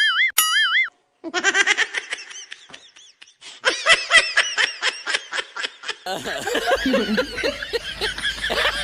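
A wobbling, repeating boing-like sound effect ends about a second in. Bursts of laughter follow until about six seconds. Then people laugh and talk over steady background noise.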